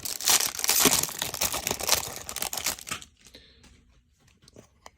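Packaging of a trading-card hanger box being torn open: tearing and crinkling for about three seconds, then much quieter, with a few small clicks and rustles.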